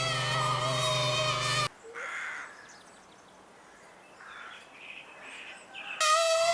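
Cartoon sound effect of a loud, wavering insect-like buzzing drone that cuts off suddenly. A few seconds of quieter hiss with a few faint calls follow, then the buzzing drone starts again abruptly near the end.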